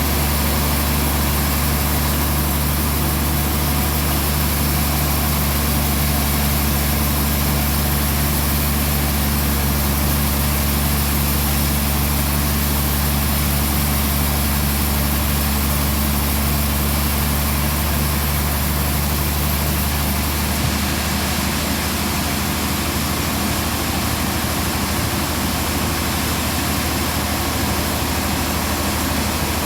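Band sawmill running steadily with a strong, constant low engine hum, which shifts slightly about two-thirds of the way through.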